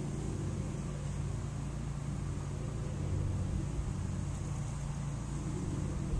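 Steady low rumble with a faint hiss over it, even throughout, with no distinct events.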